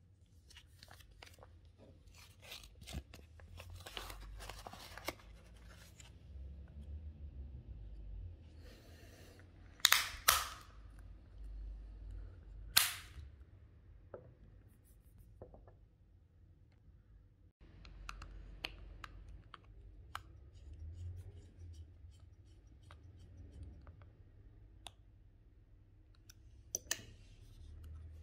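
Hands handling an acetate sunglasses frame and its lenses: scattered clicks, taps and rustling, with two loud sharp snaps about ten and thirteen seconds in as the lenses are pressed into the frame.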